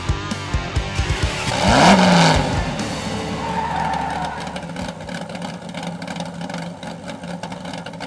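Intro music with sharp drum hits, then a car revving and tyre screech sound effect swelling about two seconds in, the loudest moment, and fading away.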